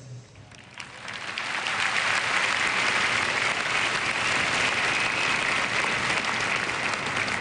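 Large audience applauding, swelling about a second in and then holding steady.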